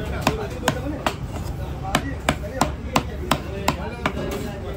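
Long fish-cutting knife chopping fish into chunks against a wooden log block: sharp, regular chops about three a second, with a short pause about a second in.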